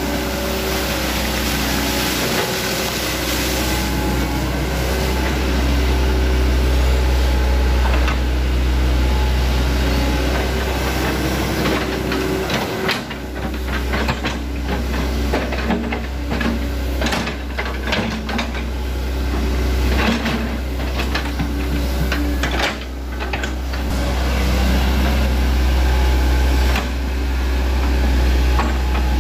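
Hitachi Zaxis 110MF excavator's diesel engine running steadily under hydraulic digging work, with a deep even hum. About halfway through, a run of sharp knocks and clatter from the working machine joins it for several seconds.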